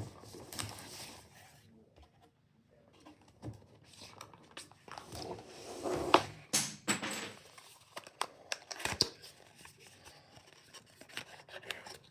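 Packaging being torn open and crinkled by hand, with scattered rustles and small sharp clicks; the loudest tearing comes about six to seven seconds in.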